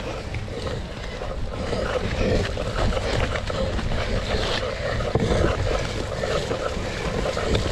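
A cyclocross bike ridden at race pace over rough ground: wind buffeting the action-camera microphone as a steady rumble, with frequent small knocks and rattles from the bike.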